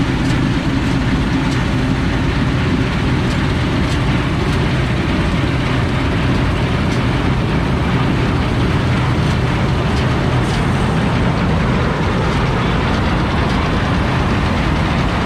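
Fortschritt combine harvester at work in a grain field: its diesel engine, header and threshing machinery running steadily as the machine drives close past.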